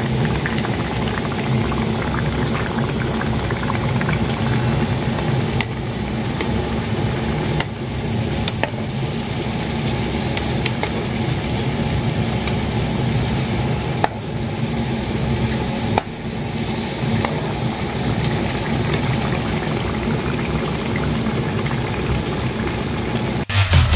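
Mandazi dough pieces deep-frying in hot oil: a steady sizzling and bubbling, with a few brief clicks.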